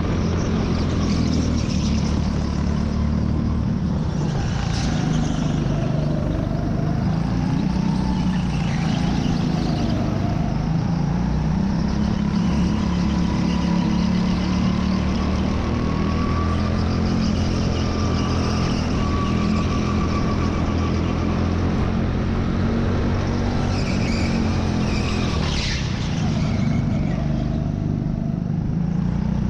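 Go-kart engine heard onboard, running continuously at race pace, its pitch dipping and rising again several times through the lap.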